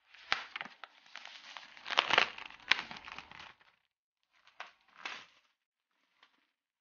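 Thin plastic shrink wrap crinkling and tearing as it is peeled off a product box, loudest about two seconds in, with two shorter crinkles near the end.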